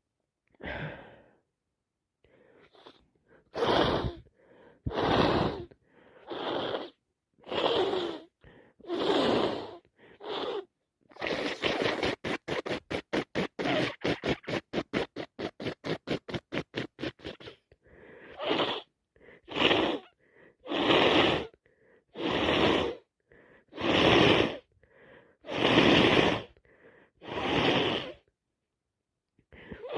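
A nose stuffed up by a heavy cold sniffing hard and wet, over and over, roughly once a second, with a fast run of short sniffs, several a second, for about six seconds in the middle.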